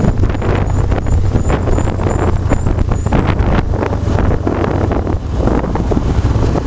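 Loud, steady wind rumble on the microphone over the engine and road noise of a moving vehicle in traffic.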